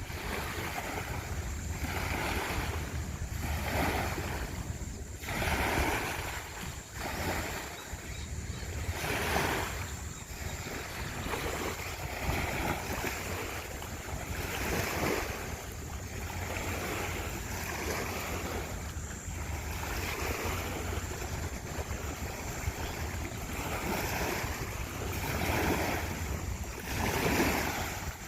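Sea water washing and splashing against a boat's hull in irregular surges every second or two, over a steady low rumble, with wind buffeting the microphone.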